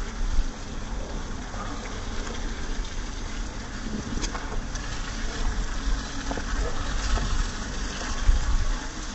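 Water from a hose spraying steadily onto an elephant's hide and splashing onto wet paving, with a low rumble and two louder low bumps, one just after the start and one near the end.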